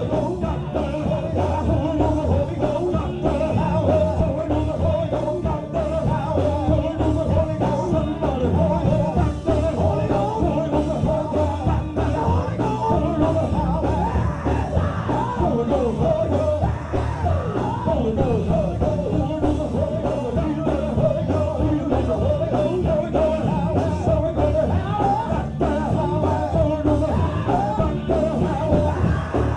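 Loud live up-tempo gospel praise music from a band with a steady fast beat, with voices singing and shouting over it.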